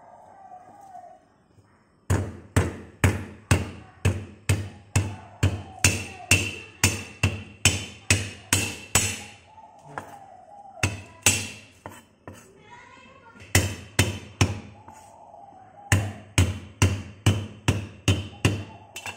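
A cleaver striking garlic cloves on a thick wooden chopping block. There are sharp, loud knocks about two to three a second, in runs broken by short pauses.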